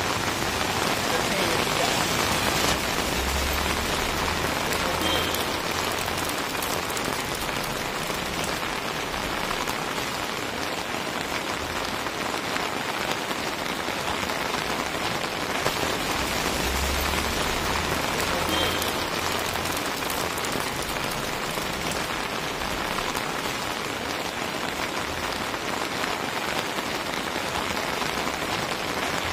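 Steady rain falling on a wet paved street.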